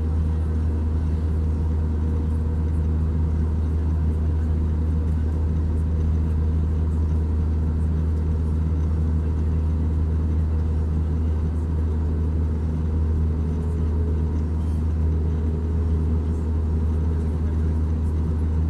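Steady in-flight cabin noise of an Airbus A320, heard from inside the cabin: a deep, even drone from the engines and airflow, with a few faint steady hums over it.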